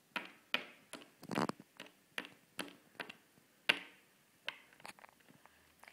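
Small plastic Littlest Pet Shop toy figure hopped along a hard surface through a hopscotch game, making a string of uneven light taps and clicks, about two a second.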